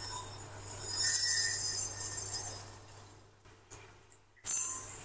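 Dry long-grain rice poured from a mug into a glass bowl: a hissing patter of grains striking the glass that fades out about three seconds in. A short clink follows, then a second mugful starts pouring near the end.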